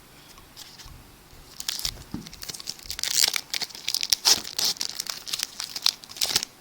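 Trading card pack wrapper being torn open and crinkled by hand: a few faint rustles, then from about two seconds in a dense, loud crackling of the wrapper.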